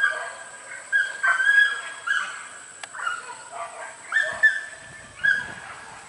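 Boar-hunting dogs yelping in a run of high, drawn-out calls, roughly one a second.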